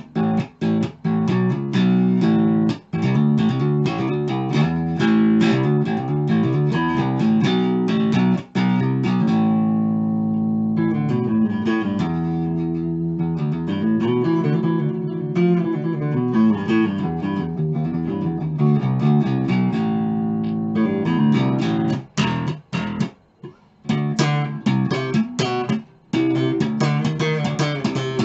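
Neck-through Rickenbacker-copy electric bass played through a guitar amp: a run of riffs and picked notes, with longer ringing notes in the middle and a few brief stops about three quarters of the way through.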